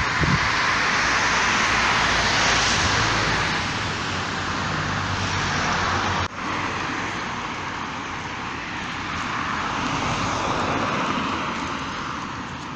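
Steady rushing noise of passing motor traffic, swelling and fading, with a faint engine hum in the middle and a brief break about halfway through.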